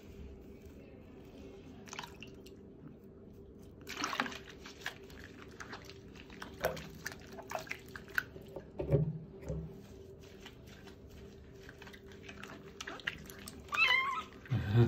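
Soapy water in a washbasin splashing and dripping as gloved hands wash a small kitten, in short irregular splashes and drips over a faint steady hum.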